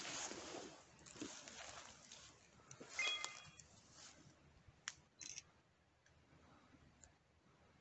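Rustling and crunching of footsteps through dead leaves and brushwood, loudest in the first two seconds, with a sharper crackle about three seconds in and a couple of light snaps around five seconds.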